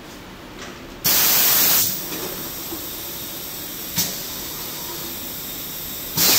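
Pneumatic air valves and cylinders of a high-frequency PVC blister sealing machine venting compressed air. A loud hiss lasts just under a second about a second in, then a softer steady hiss, a short click about four seconds in, and a second short loud blast of air near the end.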